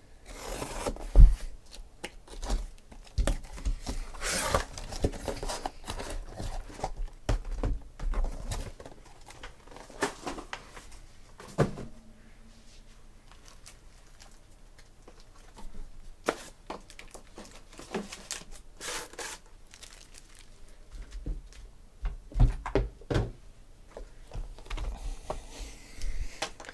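Packing tape on a cardboard case being cut and torn open, then cardboard rustling and thuds as sealed boxes are set down on a table, in irregular bursts with a quiet spell midway.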